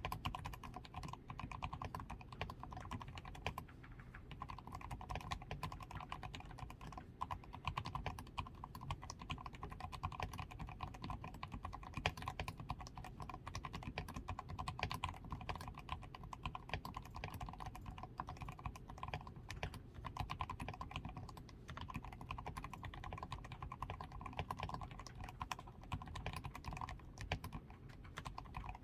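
Continuous fast typing on a DAREU A87 Pro mechanical keyboard, fully lubricated with Krytox 105, with a PCB tape mod, foam-reinforced switches, lubed stabilizers and XDA keycaps: a dense, unbroken stream of key clicks.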